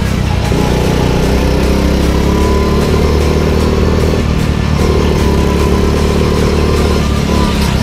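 Go-kart engine running hard at speed, heard from on board the kart, its note dipping briefly about four seconds in and again near the end.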